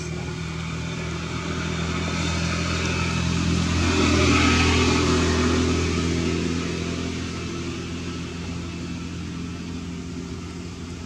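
A motor engine running steadily, growing louder to a peak about four seconds in and then fading away again, like a vehicle passing at a distance.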